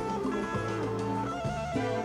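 Live Latin rock band playing an instrumental: an electric guitar lead holding sustained melodic notes over bass, drums and percussion.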